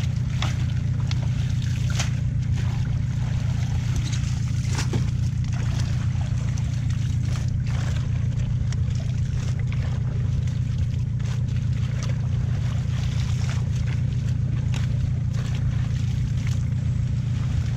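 Water splashing and sloshing, with crackling of leaves, as water hyacinth is pulled and shaken out of a fishing net by someone wading. Irregular short splashes sound over a steady low drone.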